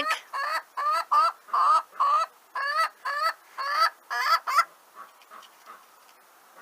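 A hen clucking: a run of about a dozen short rising calls, roughly three a second, that stops about four and a half seconds in.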